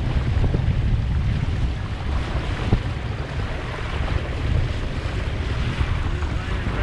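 Wind buffeting the microphone over the steady rush and splash of water around a sailboat under way, with one light knock a little before halfway.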